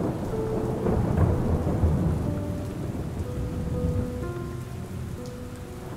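Steady rain with a low roll of thunder that swells in the first two seconds and fades away.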